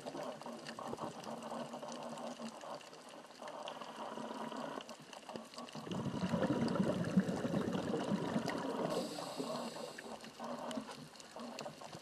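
Underwater sound of a scuba diver breathing through a regulator. A louder stream of exhaled bubbles gurgles from about six seconds in for a few seconds, over a steady underwater hiss with faint clicks.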